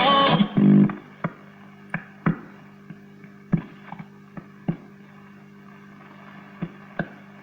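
A 1936 Zenith 5S-29 tube radio playing through its loudspeaker. A snatch of broadcast music cuts off about a second in, leaving a steady low hum with scattered static clicks, typical of the set being tuned between stations.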